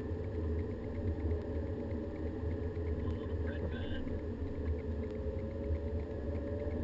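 Volkswagen Golf GTI's engine and road noise heard from inside the cabin, running steadily at low speed. About five seconds in, the engine note begins to rise as the car starts to pick up speed again.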